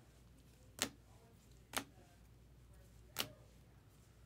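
Rigid plastic trading-card holders clacking against each other as they are shuffled through a stack: three short, sharp clicks about a second or so apart.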